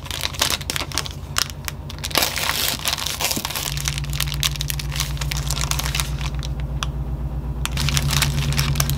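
Baking paper wrapped around a sandwich crinkling and crackling as the sandwich is handled and cut in half, over a steady low hum.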